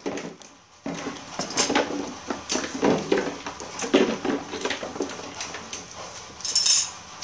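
Light clinks and knocks of dishes and cutlery at a table, among indistinct voices.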